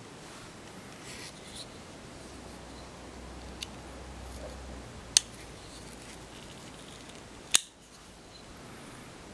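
Eric Ochs Otter folding knife being worked by hand, its blade action giving three sharp metallic clicks: a faint one, then a louder one, then the loudest near the end. There is light handling rustle early on.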